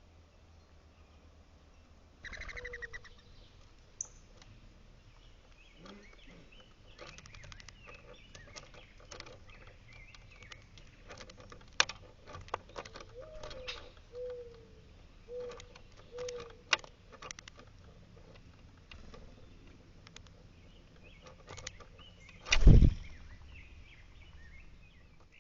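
Birds close to the microphone: a scatter of sharp clicks and taps, a few short low calls near the middle, and a sudden loud flurry of wingbeats near the end.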